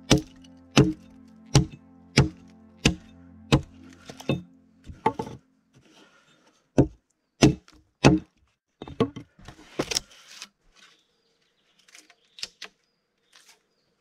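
Sharp blows of a hand tool on wood: a steady run of about seven strikes, one every 0.7 s or so, then a looser, irregular series that stops about ten seconds in. Background music with held tones plays under the first five seconds.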